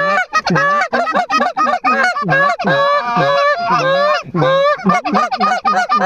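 Canada goose honking and clucking: a rapid, unbroken run of short calls, several a second, loud and close.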